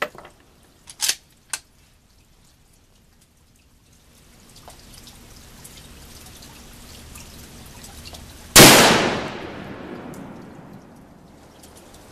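A few sharp clicks in the first second and a half as the bolt-action rifle is handled, then a single shot from a Winchester Model 70 in .223 Winchester Super Short Magnum about two-thirds of the way in, its report echoing and dying away over a couple of seconds.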